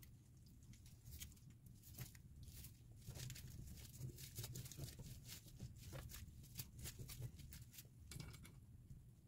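Faint, quick crackling of a dried seaweed (gim) sheet and its filling being pressed and rolled by hand into a kimbap on a wooden cutting board.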